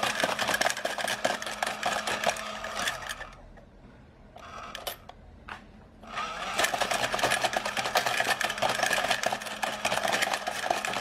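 Toy dog coin bank's small motor and plastic gears whirring with rapid clicking as the dog moves to eat the coin. It stops for about three seconds, with a couple of single clicks, then runs again.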